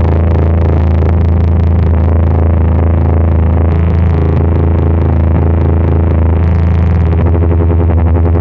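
A plant-driven noise synth, a Tubbutec Wired Heart reading a snake plant, plays through distortion and effects pedals as a loud electronic drone. A heavy low hum sits under a dense, warbling buzz, which turns into a faster, regular pulsing flutter about seven seconds in.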